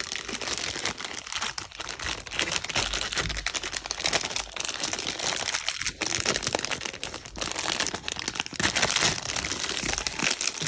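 Plastic packaging crinkling and crackling steadily as it is handled and opened.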